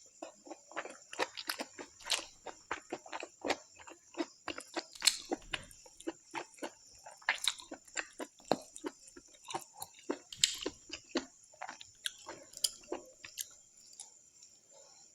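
A person chewing and eating a meal close to the microphone: irregular wet smacks and clicks of the mouth, several a second, with brief pauses.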